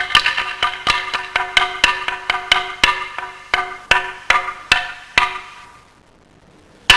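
Quick strikes on a wooden percussion instrument with a ringing pitch. The strikes gradually slow down and stop about five seconds in, and after a short pause a single loud strike comes near the end.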